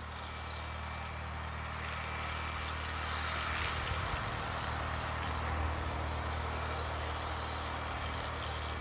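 Motor of a mountain monorail tea tram running steadily as it carries riders down a steep slope, a low hum under a hiss of travel noise that grows slightly louder.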